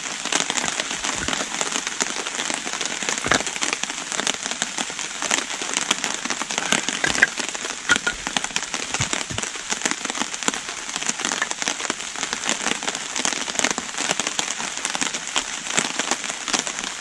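Heavy rain falling steadily in woodland, a dense patter of drops with no let-up. A few soft knocks come through as split kindling sticks are set down on the forest floor.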